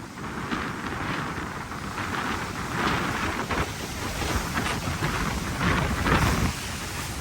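Typhoon wind gusting and buffeting the microphone, with a deep rumble and rain, rising and falling in surges.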